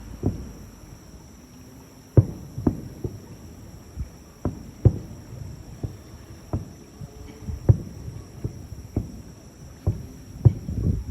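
Aerial fireworks shells bursting, about a dozen booms at irregular intervals, each followed by a short low rumble.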